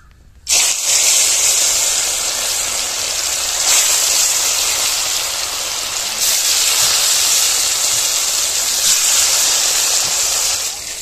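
Pieces of fish dropped one after another into hot mustard oil in a kadhai, sizzling loudly. The sizzle starts suddenly about half a second in. It swells again each time another piece goes into the oil.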